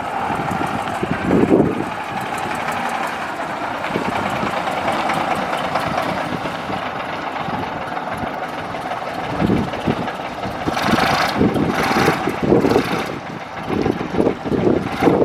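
Bus engine running steadily, with a few louder bursts of rushing noise about eleven to thirteen seconds in.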